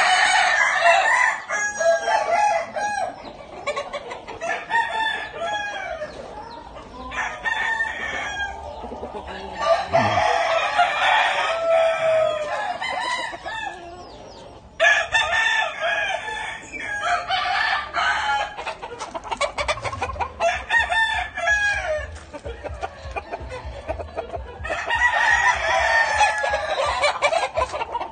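Several gamecock roosters crowing, their calls overlapping in repeated bouts of a few seconds each, with short quieter gaps between.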